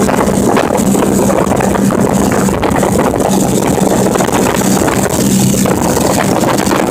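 Motorcycle engine running steadily at cruising speed, a constant hum under wind rushing over the microphone while riding.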